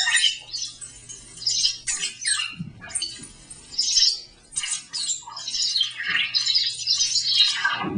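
The Container for Sound, a box-shaped electronic instrument played by moving its lid flaps, putting out chirping, squealing electronic sounds: irregular bursts of high gliding tones, with a low steady hum underneath at times.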